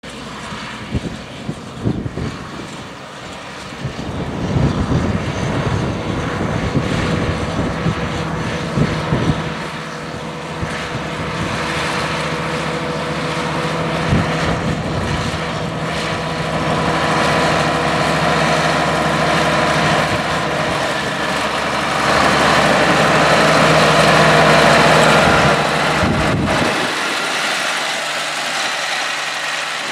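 White 185 tractor's Cummins diesel engine running as it pulls a manure spreader, growing louder as it comes closer and loudest a few seconds before the end. There are a few thumps in the first seconds. The deep engine sound falls away suddenly near the end.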